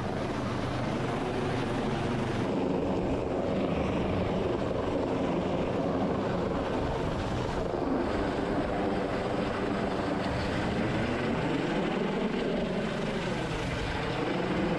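MH-65 Dolphin helicopter's turbine engines and rotors running steadily, heard from aboard the aircraft, with the pitch of the hum shifting up and down about two thirds of the way through.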